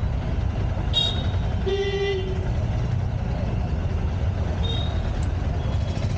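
Road traffic running steadily, with a vehicle horn honking briefly about two seconds in. Short high beeps come about a second in and again near five seconds.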